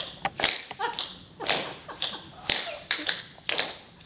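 Tap shoes striking a hard floor in a steady ticking rhythm: a loud tap about once a second, with lighter taps between, mimicking a clock's tick.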